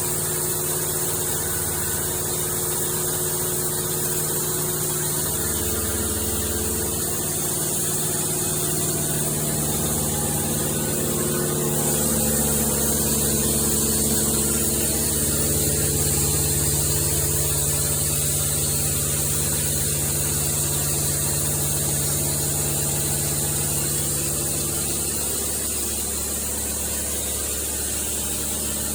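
An engine runs steadily, its note shifting a few times as the revs or load change, with a steady high hiss over it.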